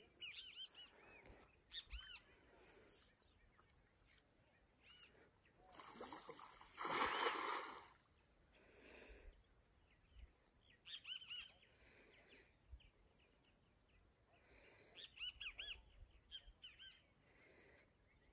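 Birds calling in short, repeated chirps in several bouts. About seven seconds in comes a roughly one-second splash, the loudest sound, as the thrown cast net lands on the water.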